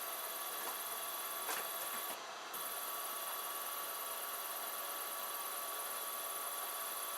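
3D printer extruder stepper motor turning a belt-drive filament feeder in reverse, retracting the filament: a steady whine of several fixed tones over hiss, dipping briefly about two seconds in.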